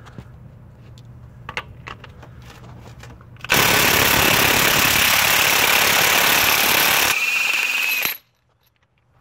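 Snap-on CT8850 cordless impact wrench hammering on a Honda crankshaft pulley bolt for about three and a half seconds, then changing about seven seconds in to a smoother spin with a steady whine as the bolt breaks free, and stopping suddenly. Before it starts, a few light clicks of the socket and extension being fitted onto the bolt.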